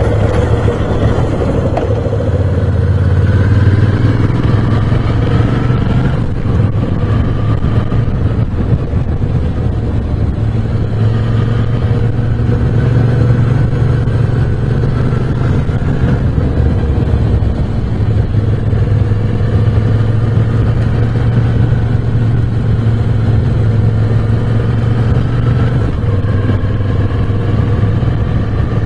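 Moto Guzzi V7 Special's 750 cc V-twin engine running under way, its revs climbing and dropping again and again as it accelerates, shifts and slows through bends.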